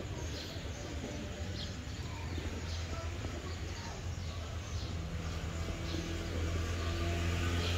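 Outdoor background: small birds chirping about once a second over a steady low hum, with a vehicle engine growing louder in the last few seconds.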